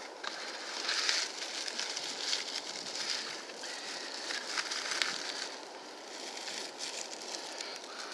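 Dry leaf tinder rustling and crackling as it is handled and folded into a bundle around a char cloth ember, in uneven swells of rustle with small clicks.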